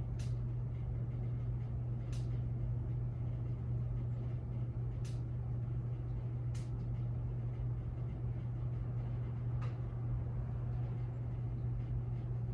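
Kmart Atlantic Air ceiling fan running on low speed: a steady motor hum with air noise, and a few sharp clicks at irregular moments.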